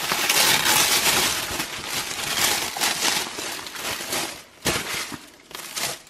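Tissue paper wrapping rustling and crinkling as it is pulled back from a box's contents. It fades after about four seconds, followed by a soft knock and a few light clicks.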